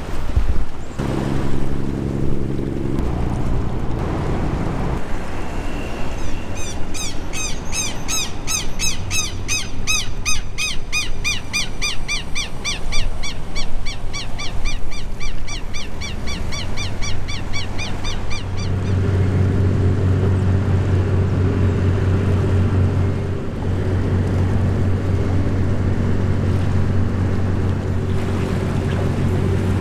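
Boat engines and outdoor ambience. A steady engine hum plays in the first few seconds. From about six seconds a bird gives rapid, repeated high chirps for about twelve seconds. From about nineteen seconds there is a steady low diesel drone from passing boats.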